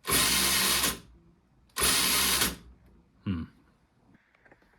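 Electric motor and gear drivetrain of a Yikong Racing YK4107 1:10 RC crawler spinning up on the stand in two short throttle blips, each just under a second, with the drag-brake setting turned all the way down.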